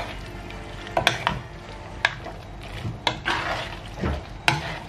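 Metal utensil stirring a thick, creamy mix of chicken, potato and onion in a pan, with a soft wet scraping and about five sharp knocks of the utensil against the pan.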